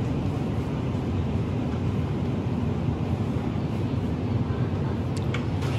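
Steady low hum and rumble of supermarket ambience from open refrigerated produce cases and ventilation, with a couple of faint clicks about five seconds in.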